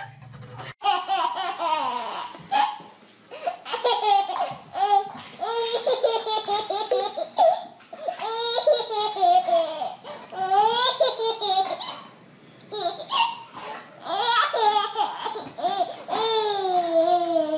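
A baby laughing in repeated high-pitched peals, with brief pauses between.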